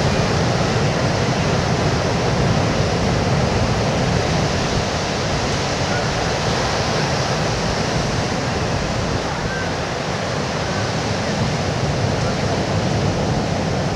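Steady wash of surf breaking on a beach, an even rushing noise that does not let up.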